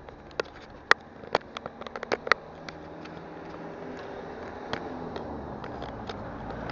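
A quick run of sharp clicks and knocks in the first two and a half seconds, then steady street noise growing louder as a van drives closer.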